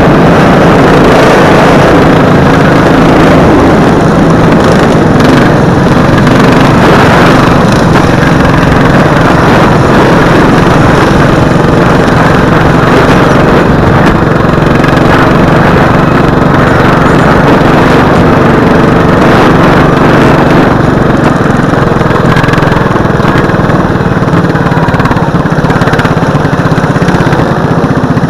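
Racing lawn mower's engine running hard and steady, heard loud and close through a helmet-mounted camera.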